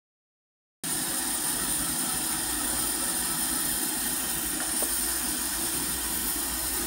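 Steady roar of a gas wok burner under a wok of simmering soup, starting abruptly about a second in after dead silence.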